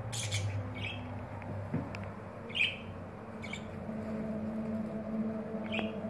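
Pet budgerigars giving short, high chirps, about six scattered through, the loudest a little before the middle, over a steady low hum.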